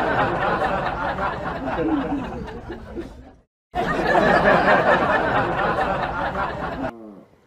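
Several people laughing and talking over each other in a dense, loud jumble. It breaks off about three and a half seconds in and starts again, then fades near the end.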